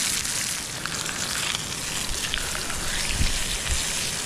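Ribeye steak sizzling in a pan over a Trangia spirit stove: a steady hiss with small crackles, and a couple of low thumps about three seconds in.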